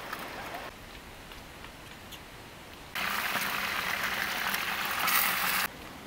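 A loud, steady hiss that starts about three seconds in and cuts off abruptly under three seconds later.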